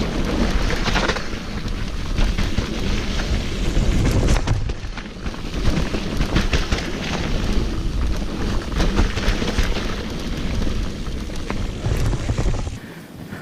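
Mountain bike ridden fast over a rough trail: heavy wind buffeting on the action camera's microphone, with tyre noise and many sharp rattling knocks from the bike over bumps. The rumble drops away sharply near the end as the bike slows.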